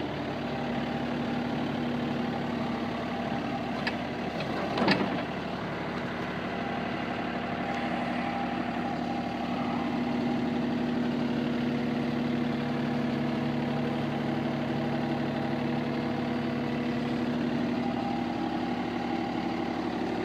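Engine running steadily, with a single sharp knock about five seconds in.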